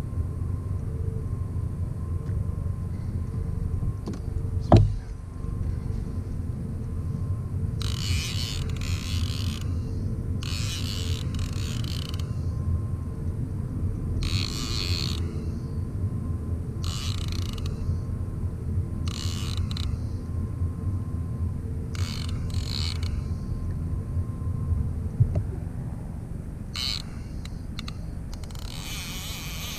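Fishing reel's drag buzzing in short bursts every few seconds as a hooked kingfish takes line, over a steady low rumble. A sharp knock about five seconds in.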